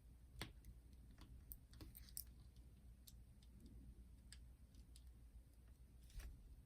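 Faint, scattered light clicks and taps of small screws and a screwdriver being handled while a boombox cassette deck is taken apart.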